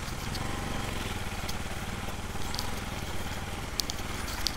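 Motorcycle engine running at low speed on a rough dirt track, with a few sharp ticks near the end.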